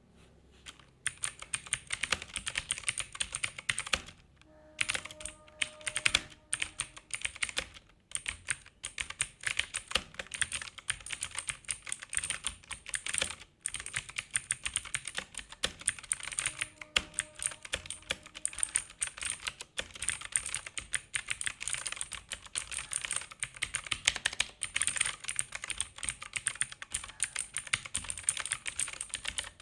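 Fast, continuous typing on a Zebronics Zeb Max Pro V2 mechanical keyboard with clicky blue switches, each keystroke a sharp click. It starts about a second in, with brief pauses near four seconds and near thirteen seconds.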